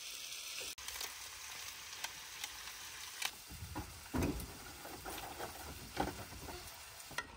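A steady sizzling hiss, broken by a few dull thuds of footsteps coming down a pop-up camper's metal step, the loudest a little after four seconds in.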